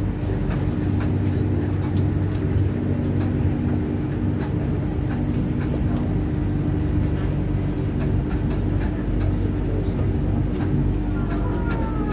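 Passenger train heard from inside the carriage while running, a steady rumble and hum with a constant drone and scattered light clicks and rattles. Near the end a faint falling whine comes in.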